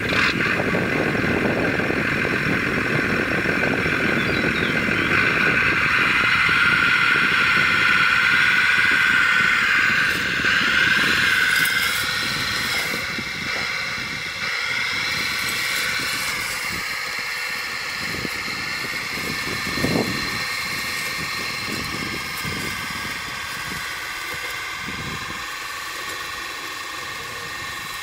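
RC model Schlüter 1250 VL tractor running under load, its Benedini sound module playing a tractor engine sound through the model's speaker while it pulls a four-furrow plough through hard ground. The sound grows quieter over the second half as the tractor moves away, with a single short knock near the two-thirds point.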